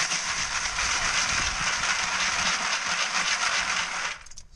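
Steady rushing of running brook water, cutting off abruptly about four seconds in.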